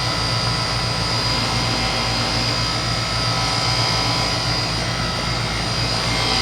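2004 Goodman 10 SEER 3.5-ton heat pump outdoor unit running steadily in cooling mode: a Copeland reciprocating compressor hums under the condenser fan's drone, with a faint steady high whine over it.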